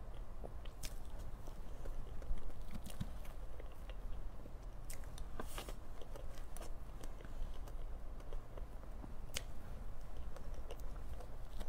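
Close-miked eating of a soft whipped-cream cake: wet chewing and mouth sounds with scattered small sharp clicks at irregular intervals.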